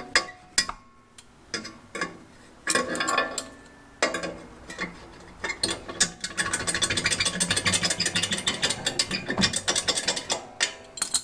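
A few scattered metal clinks and clanks, then from about six seconds in a ratchet wrench clicking rapidly and evenly for several seconds as bolts on an ATV snowplow mount are loosened.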